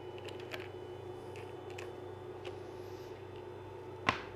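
Light clicks of plastic sample tubes being handled and set into a tube rack, with one sharp knock about four seconds in as a rack is touched or set down, over a steady low hum.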